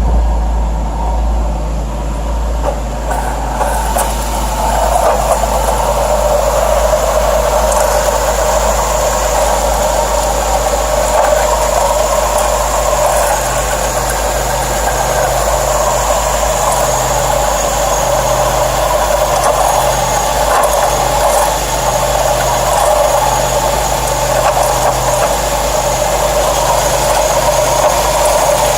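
Car engine running, with a steady rushing noise on top that strengthens about four seconds in: the new, unexplained noise the owner is asking about.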